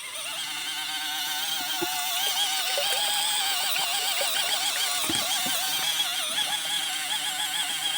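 Small 12 V portable washing machine running a wash cycle, its motor giving a steady whine that wavers rapidly in pitch over a hiss of churning water. The sound builds up over the first second.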